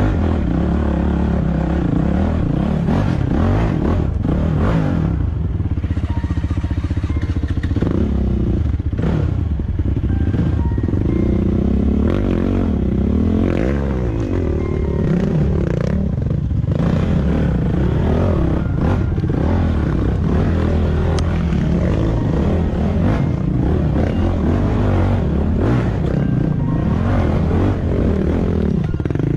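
Trail motorcycle engine revving up and down as it rides, its pitch rising and falling again and again.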